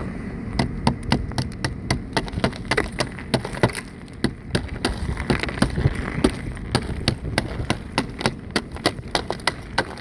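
Sleet pellets ticking irregularly, several times a second, on an iced-over car and around the phone, over a steady hiss.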